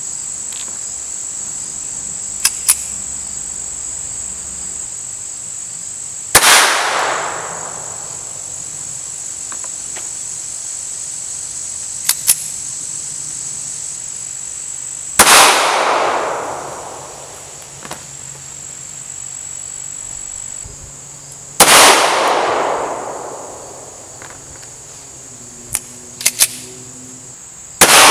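Four single handgun shots several seconds apart, each cracking and then ringing out in an echo that dies away over a second or two. Faint sharp clicks come between the shots, and a steady high-pitched insect drone runs underneath.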